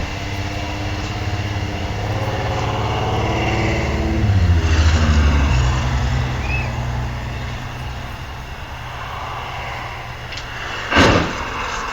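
A car engine running, its pitch falling about four seconds in, then settling into a steady low hum. A short, sharp, loud noise comes about eleven seconds in.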